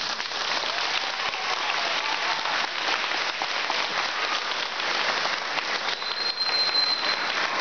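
Audience applauding, a dense crackle of many hands clapping. A single high steady whistle rises above it for about a second near the end.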